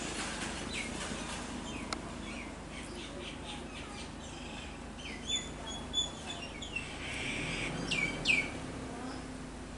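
A series of short, high-pitched chirps, many falling in pitch, growing more frequent in the second half. The loudest pair comes near the end. A single sharp click sounds about two seconds in.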